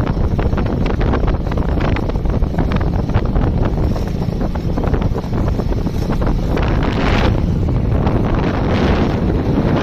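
Loud wind buffeting a phone microphone on a moving motorbike: a steady rushing rumble that flutters constantly, with a brief hissier gust about seven seconds in.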